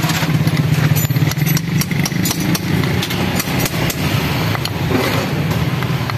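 Hammer striking a steel drift set on a motorcycle pump housing, repeated sharp metal taps about two or three a second, as a part is driven out of the housing. Under the taps, the steady low hum of an idling engine.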